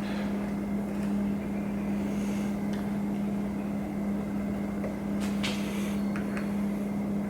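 A steady machine hum fills the workshop, with a few light metallic clicks and taps from transmission parts and tools being handled, mostly in the second half.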